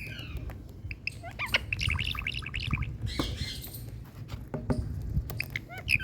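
Parrot calling: a falling call at the start, then a quick run of short chirps, a harsher squawk about three seconds in, and a few sharp clicks near the end.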